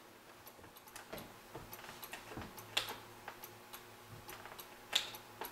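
Light metal clicks and small scrapes of a flat blade prying staples out of the felt on a wooden pool table rail. The clicks come irregularly, with two sharper ones near the middle and near the end.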